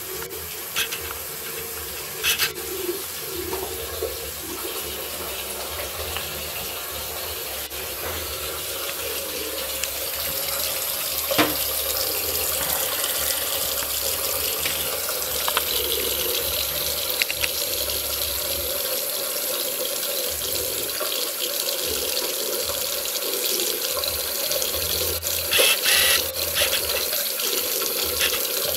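Tap running a thin stream of water into a ceramic bathroom washbasin: a steady splashing hiss, broken by a few short sharp sounds.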